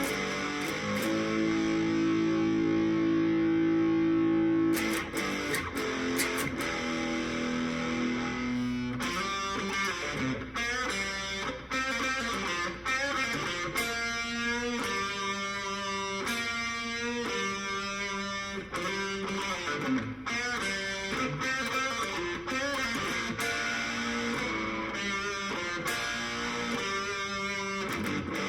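Electric guitar played through an overdriven amplifier. It opens with a chord held for a few seconds, then moves into a fast picked rock lead line of quick repeated notes.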